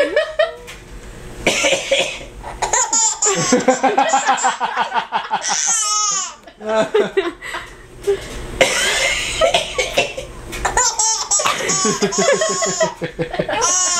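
A man coughing in bursts, and a baby laughing hard after each fit of coughing, with a high squeal in the middle.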